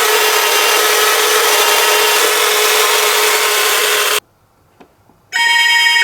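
Toy ambulance minicar rolling down a slope: a loud, steady rolling rasp that cuts off about four seconds in. After a second of quiet and a faint click, the toy's electronic two-tone siren sounds near the end.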